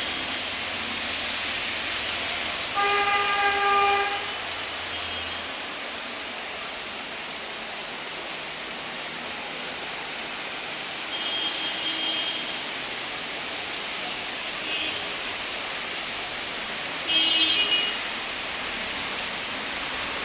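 Steady rain. About three seconds in, a horn sounds for about a second, and shorter high tones come twice more, once near the middle and once near the end.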